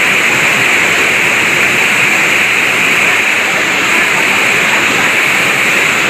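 Loud, steady rush of a waterfall's fast, flood-swollen white water.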